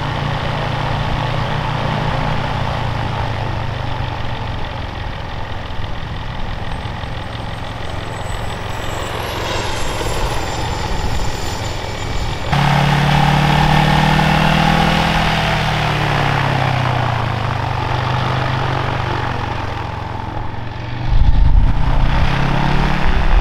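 Gyroplane's two-cylinder Polaris ATV engine conversion running with its pusher propeller turning. After a cut about halfway through, the engine pitch rises and falls as it taxis, and near the end a loud low rumble takes over.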